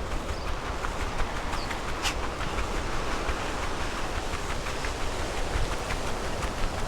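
Empty kayak cart being pulled along, its wheels rolling over the ground with a steady rumble and scattered small clicks and rattles.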